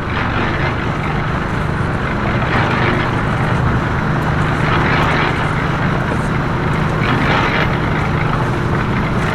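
Steady motor traffic noise, with a low engine hum and a few swells as vehicles pass.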